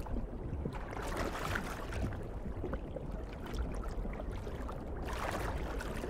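Underwater ambience: a steady low rumble and wash of moving water, with no distinct events, growing slightly brighter about five seconds in.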